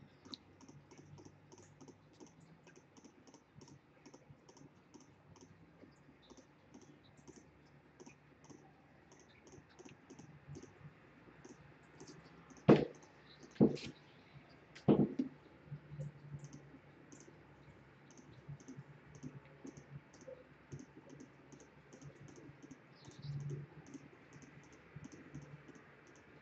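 Computer mouse clicking about twice a second: small, quiet ticks as outline points are placed one by one. A few louder knocks come about halfway through.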